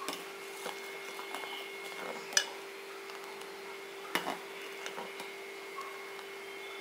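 Steel ladle clinking lightly against the sides of a steel pot a few times while stirring thick coconut-milk payasam, the loudest clink about two and a half seconds in and two close together about four seconds in. A steady faint hum runs underneath.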